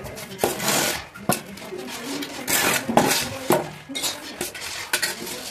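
Wooden window-frame pieces being handled on a concrete floor: a few sharp knocks of wood against wood and concrete, with scraping and rubbing as the frames are shifted into place.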